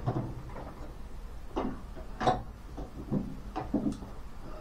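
Scattered light clicks and knocks, several separate ones spread over a few seconds, from tools and wiring being handled.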